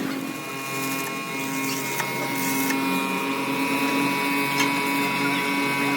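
A motor-driven machine running steadily, a constant multi-tone hum with a few faint clicks.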